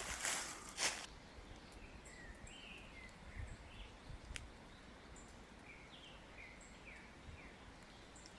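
Loud rustling and crackling of twigs for about the first second, then faint short descending bird chirps repeating over a quiet forest background.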